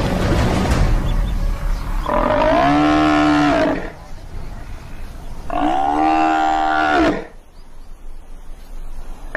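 Injured Cape buffalo cow bellowing in distress while a lioness holds it down: two long drawn-out calls, the first about two seconds in, the second about five and a half seconds in. A broad rumbling noise fades out in the first second.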